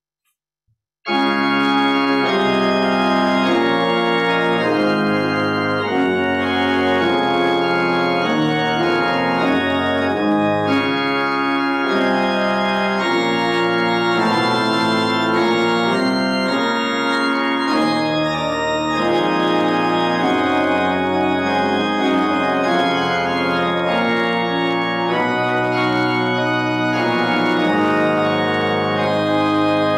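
Pipe organ playing the postlude that closes a church service: full, sustained chords that change every second or two, starting suddenly about a second in after a moment of silence.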